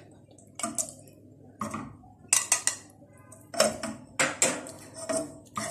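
A red plastic measuring cup and a wire whisk knocking and clinking against a nonstick saucepan of milk as condensed milk is emptied into it, in a string of sharp knocks.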